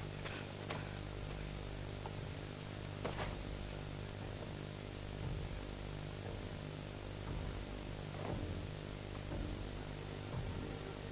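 Low steady hum with a hiss, broken by a few faint clicks and knocks: one near the start, a sharper one about three seconds in, and another about eight seconds in.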